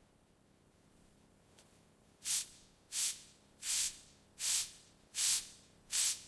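Six short hissing spray bursts in a steady rhythm, about one every three-quarters of a second, beginning about two seconds in.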